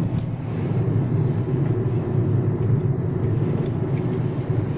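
Steady low road and engine rumble of a car being driven at speed, heard from inside the cabin.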